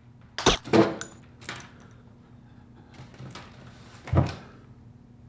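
A few sharp knocks and thuds: a cluster of hard hits in the first second, a lighter one about a second and a half in, a faint one near three seconds, and a heavy thud just after four seconds.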